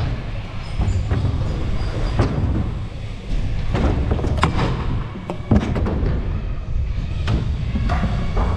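Stunt scooter wheels rolling over skatepark ramps with a steady low rumble, broken by several sharp knocks and clacks as the scooter lands and strikes ramp edges and rails.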